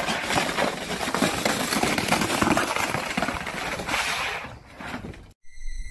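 A hard plastic sled scraping over asphalt as a dog pushes it along: a steady rough scrape that fades out about four and a half seconds in.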